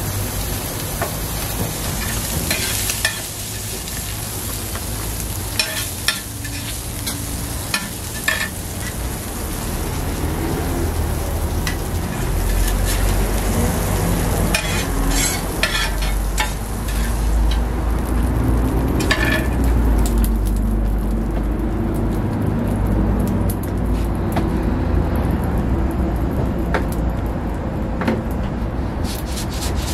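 Egg, bean sprouts and ham sizzling on a flat steel griddle, with a metal spatula scraping the griddle and clicking against the bowl now and then. A low rumble runs underneath through the middle.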